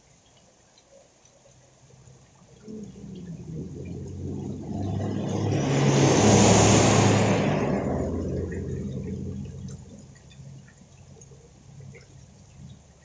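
A vehicle passing on a wet road: tyre hiss swells for a few seconds, peaks about halfway through and fades away.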